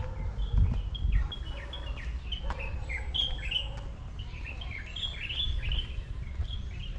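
Several small birds chirping busily, many short falling chirps overlapping one another, over a steady low rumble.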